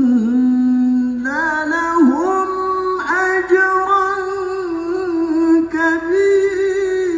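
A man chanting the Quran in the melodic mujawwad (tilawah) style, drawing out long held notes with wavering ornaments. The melody climbs after the first second or so and then holds high.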